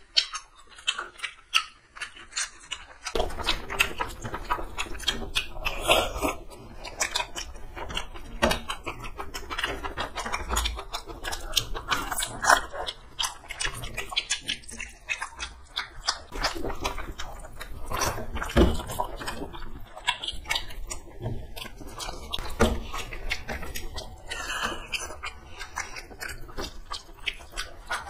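Two people eating rice and chicken curry with their hands: close, wet chewing and mouth clicks, many short smacks in quick succession, with fingers mixing rice on steel plates.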